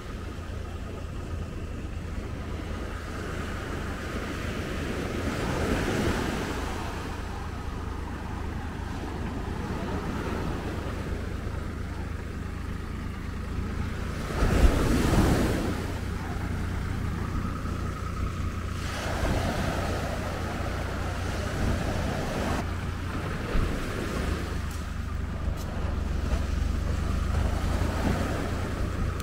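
Surf washing onto a sandy beach, with wind buffeting the microphone and a faint steady hum. One louder surge comes about halfway through.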